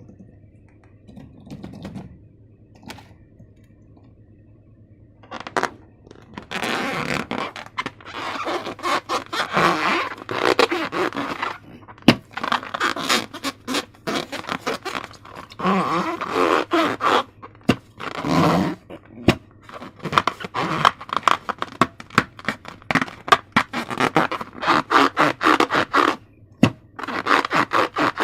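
Slime-making handling sounds: rapid, irregular scraping and rubbing strokes. Faint and sparse for the first few seconds, then nearly continuous from about five seconds in.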